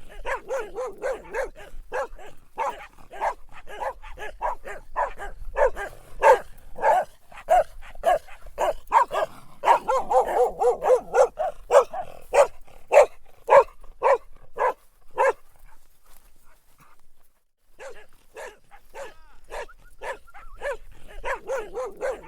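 Dog barking in quick, repeated barks that break off for a few seconds past the middle, then start again near the end.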